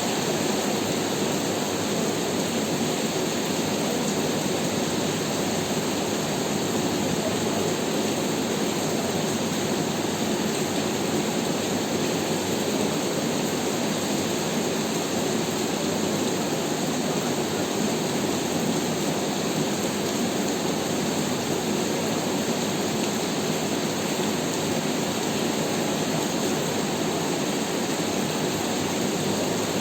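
Heavy rain falling, a steady, even hiss that holds at one level throughout.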